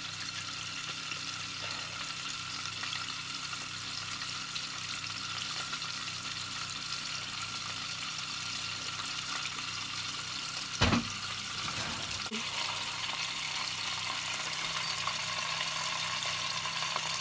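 Butter sizzling steadily as it melts in a saucepan on the hob, with a single knock about eleven seconds in.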